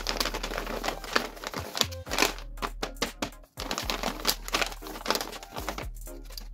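Handmade paper blind bag crinkling and crackling as it is handled and turned over: a dense run of sharp paper clicks, with a short pause a little past halfway. Background music underneath.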